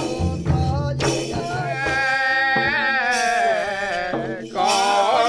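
Men singing a Kathi Nacha folk song together, with long held, wavering notes, over a rhythmic percussion beat that drops out after the first second.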